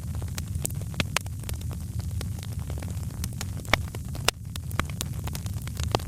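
Wood fire crackling: irregular sharp pops and snaps over a steady low rumble, with a couple of louder pops about four seconds in.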